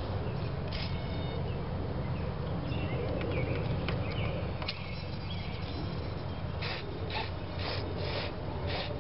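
Steady low wind rumble on the microphone, with faint bird chirps. In the last couple of seconds a short, chirp-like sound repeats about twice a second.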